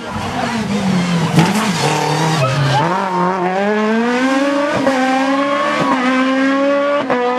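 Rally car engine coming off the throttle with its pitch falling, then accelerating hard with the revs climbing, with a quick upshift about five seconds in and another near the end.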